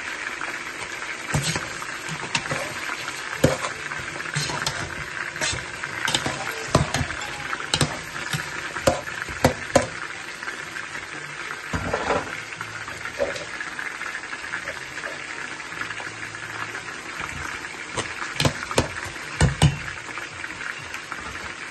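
Chopped onions sizzling in a metal pot, with a metal spoon stirring and clinking against the pot now and then in sharp knocks.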